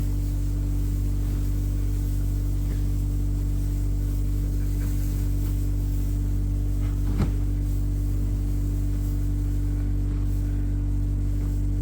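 An engine running steadily at a constant speed, a low even drone, with a single sharp knock about seven seconds in.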